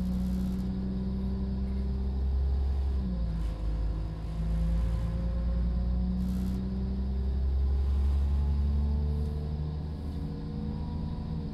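Class 172 Turbostar's underfloor diesel engine running under power, heard from inside the carriage over a low rumble. Its note dips about three seconds in, then slowly climbs again.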